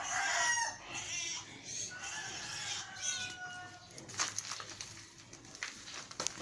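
Chickens clucking and a rooster crowing, with one drawn-out call in the middle. Scattered sharp clicks and knocks follow in the second half.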